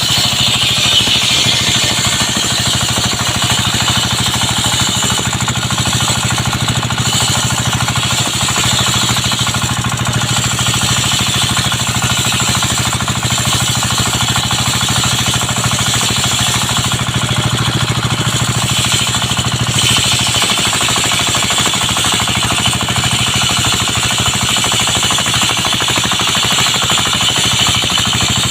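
Engine-driven circular sawmill running steadily. The engine's drone sits under the high whine of the blade sawing coconut wood, which swells and eases at times.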